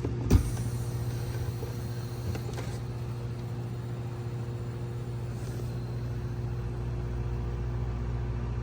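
Freshly installed replacement refrigerator compressor running steadily with a low electrical hum, pumping the low side down just after start-up. A short knock sounds about a third of a second in.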